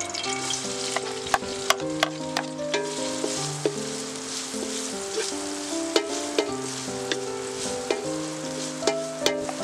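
Food frying and sizzling in a metal wok while a wooden spatula stirs and scrapes it, with sharp clicks each time the spatula knocks against the pan.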